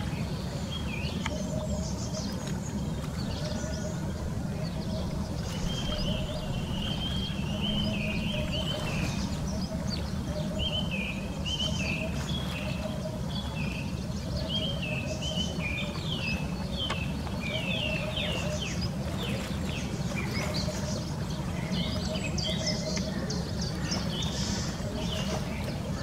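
Small birds chirping in short, repeated warbling phrases, more often from about six seconds in, over a steady low rumble of outdoor ambience at the lake shore.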